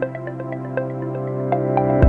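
Background music: soft, light notes over sustained pads, with a bass and beat coming in at the very end.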